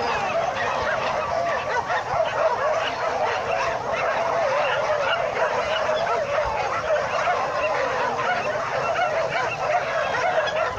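A large pack of dogs yelping, whining and barking all at once in a dense, unbroken chorus of excited high cries.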